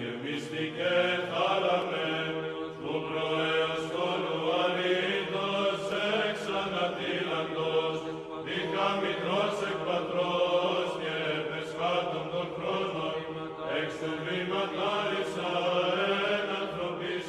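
Orthodox church chant: voices singing a slow melody over a steady, low held drone note.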